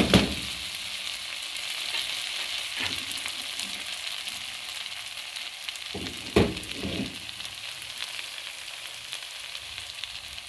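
Masala chicken pieces sizzling in a non-stick frying pan on leftover heat after the gas flame is turned off, a steady high hiss slowly dying down. A few knocks of the spatula on the pan at the start, and a couple more knocks about six seconds in.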